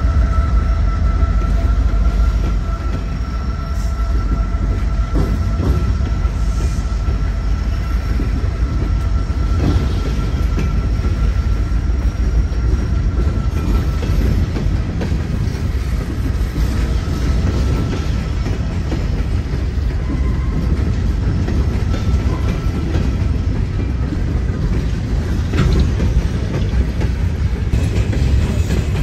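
Freight train of coal hopper cars rolling past: a steady low rumble of steel wheels on rail with scattered clicks, and a faint steady high squeal from the wheels that fades out about halfway through.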